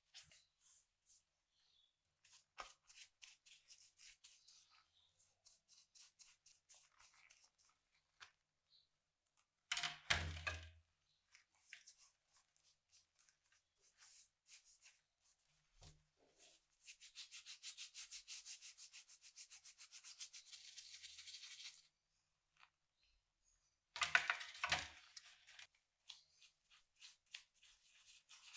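Faint stiff paintbrush bristles scrubbing the wet, rusty metal of a vintage meat grinder and its parts in short repeated strokes. Near the middle there is a run of rapid, even strokes, and there are two louder knocks.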